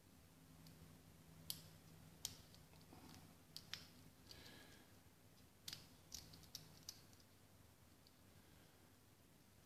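Faint, irregular metallic clicks of a lock pick and tension wrench working the pin stack of a Tri-Circle 265 padlock, about eight sharp ticks scattered through, some in quick pairs.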